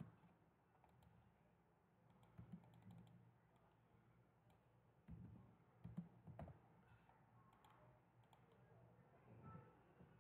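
Faint computer keyboard typing: a few scattered, irregular keystrokes and clicks.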